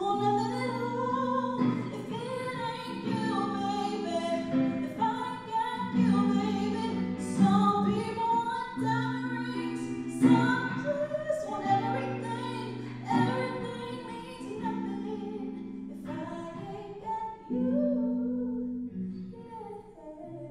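A woman singing a slow song into a microphone over accompaniment that holds sustained chords, each chord lasting a couple of seconds. The music grows quieter near the end.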